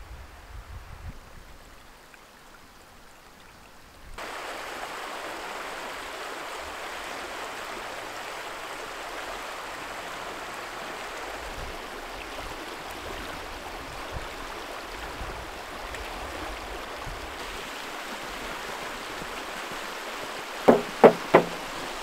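Creek water running steadily, starting abruptly about four seconds in after a quieter stretch. Near the end come three loud knocks.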